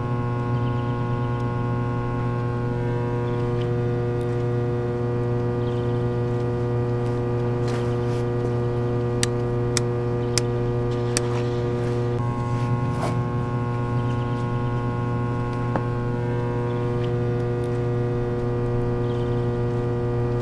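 Electric guitar amplifier and its huge loudspeaker humming with mains hum, a steady buzz made of several held tones, as the powered-up rig waits for the first chord. A few sharp clicks come in the middle.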